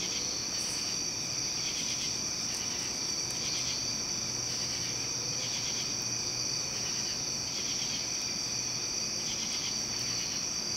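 Insects chirping: a steady high-pitched trill, with a shorter pulsed chirp repeating about every second and a half.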